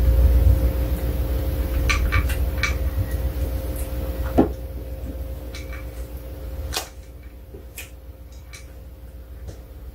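Pomeranian eating dry kibble from a bowl: scattered short crunches and clicks, over a steady low hum.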